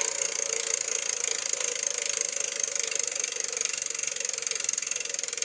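Bicycle drivetrain spinning: a steady, rapid mechanical rattle of chain and freewheel clicks.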